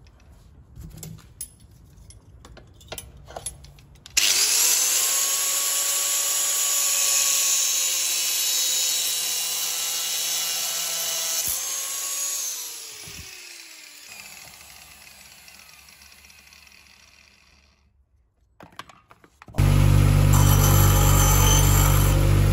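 Black+Decker angle grinder switched on about four seconds in, cutting through a thin metal rod with a steady whine. About eight seconds later it is switched off and spins down, its whine falling in pitch and fading. Near the end a bench grinder starts with a sudden loud, steady hum.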